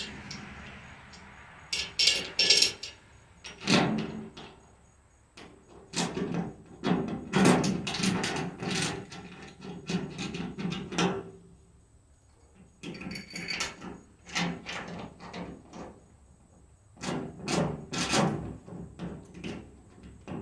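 Clicks, taps and knocks of a stainless steel flag pole bracket and its screws being handled against an aluminum column while the bracket is positioned and the screws are fitted by hand. They come in several short clusters with quiet gaps between them.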